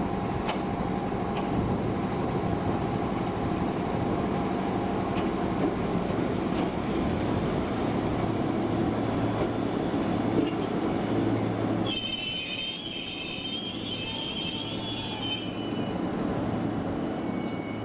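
Kumamoto Electric Railway 200-series electric train pulling into a terminal station, rumbling over the rails. About twelve seconds in the rumble drops away and a high squeal from the wheels and brakes sounds for a few seconds as the train slows to its stop.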